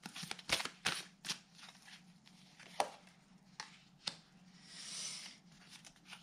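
Playing-card-sized tarot cards handled on a cloth-covered table: a series of soft clicks and taps as cards are picked up and set down, then a short sliding rustle about five seconds in as a card is drawn and laid down.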